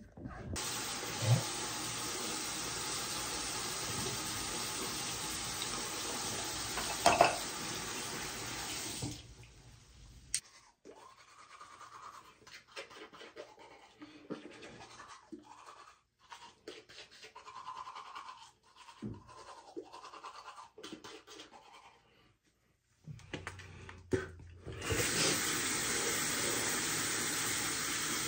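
A steady rushing hiss, like water running, for about eight seconds, then it stops. Quieter knocks and soft handling sounds follow, and the hiss starts again near the end.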